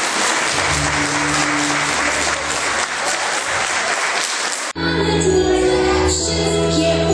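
Audience applause with faint music underneath, cut off suddenly about four and a half seconds in, when a new piece of music starts with steady held notes.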